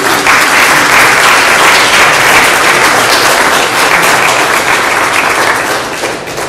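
A roomful of people clapping together in sustained applause, which fades away near the end.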